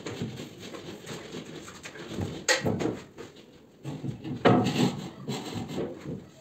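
Handling noise from work on a gypsum ceiling frame: rustling, with two louder knocking, scraping sounds about two and a half and four and a half seconds in.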